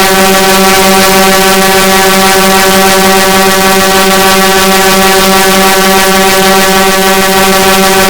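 Emergency alert alarm: a loud, harsh, buzzing horn-like tone held at one low pitch without any change, over a heavy hiss.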